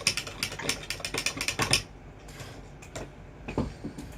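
A dab wand stirring a drink in a cup: rapid clicking of the tool against the cup that stops after about two seconds, followed by a few scattered taps.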